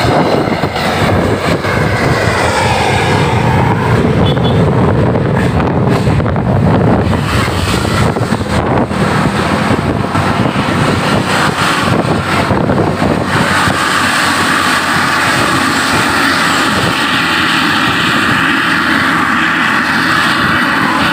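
A large bus's diesel engine running loud and close, steady throughout. A steadier, higher-pitched noise joins about two-thirds of the way through.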